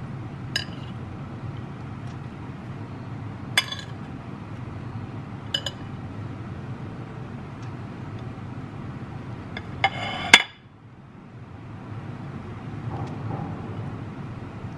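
A metal spoon clinking against ceramic plates as diced potatoes are scooped and served. There are a few separate sharp clinks, with the loudest cluster about ten seconds in, over a steady low hum.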